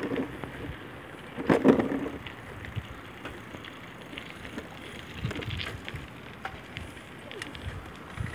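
Steady rolling road noise and wind on the microphone while moving alongside a child's bicycle, with scattered light clicks. A louder rough gust comes about one and a half seconds in.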